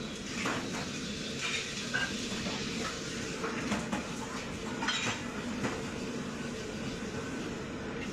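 Busy commercial kitchen: a steady noise of extraction hood and stoves, with scattered clinks and knocks of dishes, pots and utensils.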